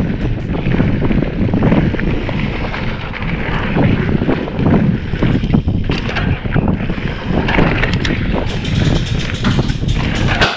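Wind buffeting the microphone over the rumble and rattle of a mountain bike being ridden on a dirt singletrack. Near the end comes a quick run of sharp clicks.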